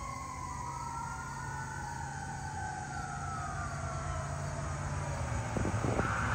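Fire engine siren wailing as the truck approaches, its tone winding slowly down over about five seconds while a second tone rises and falls, over the truck's steady engine hum. A louder burst of noise comes near the end.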